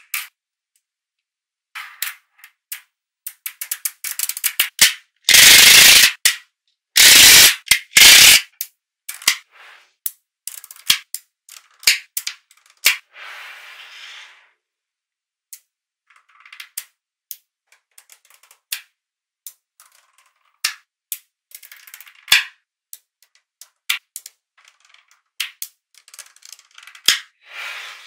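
Small magnetic balls clicking and snapping together as strips of them are set onto a sheet of balls: scattered sharp clicks, with two loud, longer rattling clatters about five to eight seconds in and a softer rattle around the middle.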